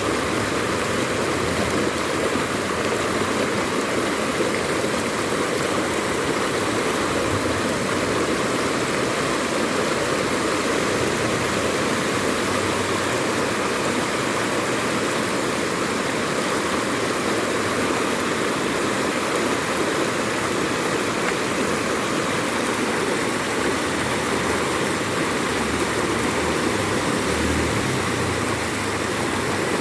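Floodwater rushing across a flooded road like a river, making a steady, unbroken rush of water.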